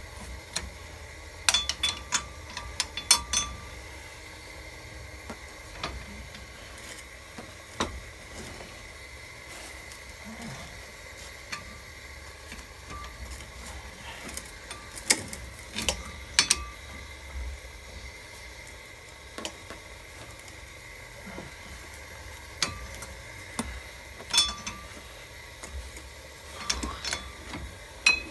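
Hand wrench clinking and tapping against the truck's axle nut and hub as the nut is worked off. The clinks are sharp and ring briefly, and come in small clusters every several seconds.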